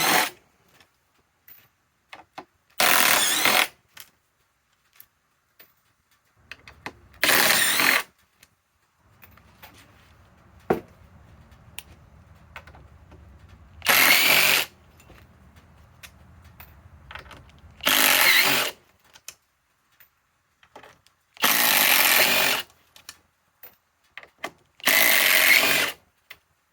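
Cordless impact driver hammering in about six short bursts, each lasting under a second, on #10 one-inch sheet-metal screws.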